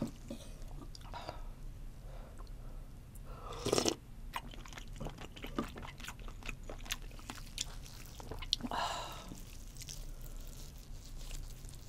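Close-miked chewing and wet mouth sounds of a person eating soft food, with scattered small clicks. There is a louder wet mouth sound about four seconds in and another near nine seconds. Near the end a slice of raw fish is brought to the mouth and bitten.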